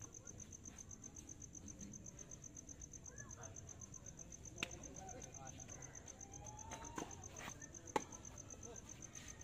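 Crickets chirping in a steady high-pitched pulsing trill. A tennis ball is struck sharply by a racket about eight seconds in, after a couple of fainter knocks of ball on racket or court.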